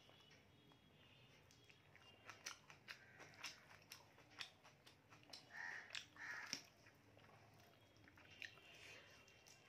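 Close-miked eating sounds: a person chewing a mouthful of rice and mutton curry, with soft, wet mouth clicks and smacks coming in a quick run from about two seconds in to past the middle, then fading back to faint room tone.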